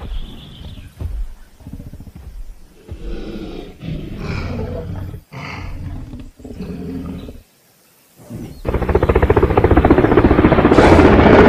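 Dubbed-in T-Rex roar sound effects: several shorter roars broken by gaps, then, after about a second of quiet, a long, much louder roar starting about nine seconds in.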